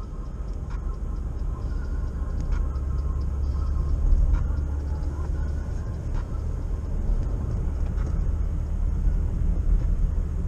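Car interior while driving on a snowy road: a steady low rumble of engine and tyres, with a few faint light clicks.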